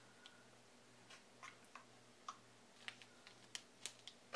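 Faint, scattered light clicks and taps of fingers handling tiny candy donut pieces on plastic packaging, over a faint steady hum.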